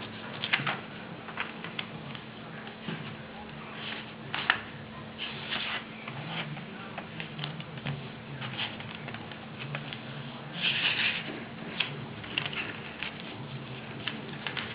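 A sheet of paper being handled and folded, with scattered rustles and sharp creasing clicks and a steady low hum underneath.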